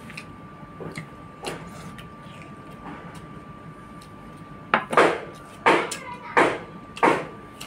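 Light clinks of a stainless steel bowl against a plate, then from a little past halfway loud, regular smacking of open-mouthed chewing, about one smack every 0.7 seconds. A faint steady whine runs underneath.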